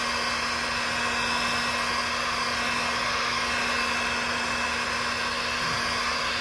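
Electric heat gun running steadily, blowing hot air over self-healing paint protection film to heal scratches in it. An even rush of air with a steady low motor hum under it.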